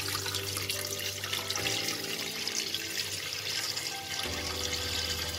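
Water poured in a steady stream from a plastic jug into a cooking pot, splashing onto fried chicken pieces and whole spices in the pot.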